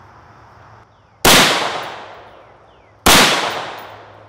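Two loud shots from a custom-built 5.56/.223 AR-15 rifle fitted with a muzzle brake, about two seconds apart. Each sharp crack is followed by a long echo dying away.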